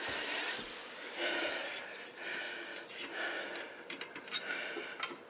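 A man breathing close to the microphone, in hissy breaths about a second long, with a few light clicks near the end.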